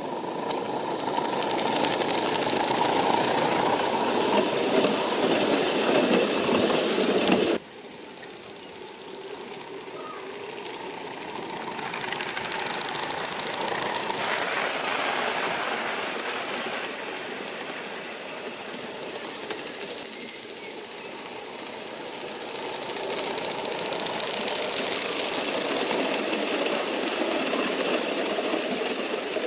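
Model 38 class steam locomotives running with their train, a steady mechanical running noise. The sound drops abruptly to a quieter level about seven and a half seconds in, then swells and fades gently.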